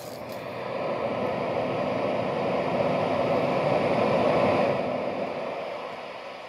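Sharper Image SM241 Sound Soother's synthetic ocean-wave sound: a white-noise hiss that swells up over about four seconds and then fades back down, like one wave rolling in and out.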